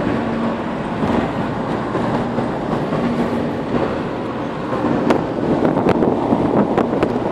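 Steady road noise inside a moving car's cabin: tyres rumbling on a paving-block road under a steady engine drone, with a few short clicks or rattles in the second half.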